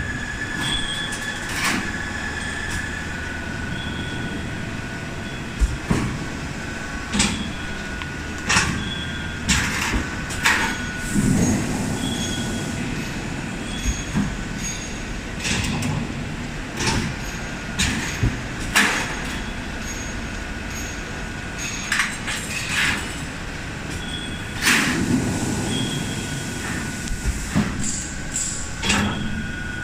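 Automatic HVAC duct production line running: a steady machine hum with high whining tones, broken by sharp metallic clanks at irregular intervals, some in quick pairs.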